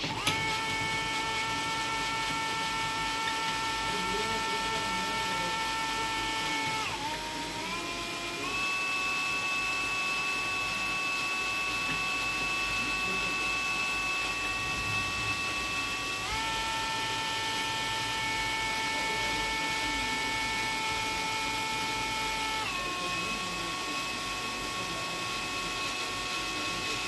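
Electric drill with a Bosch HSS-R bit running, enlarging a 4.5 mm pilot hole into a bigger hole. Its motor whine dips in pitch about seven seconds in and then settles higher, drops back a little past halfway, and rises again near the end.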